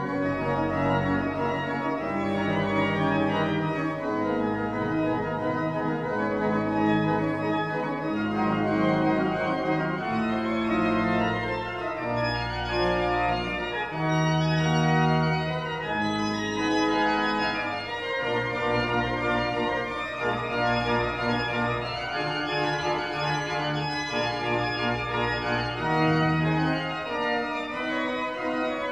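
Pipe organ playing: full held chords over a bass line that moves to a new note every second or two.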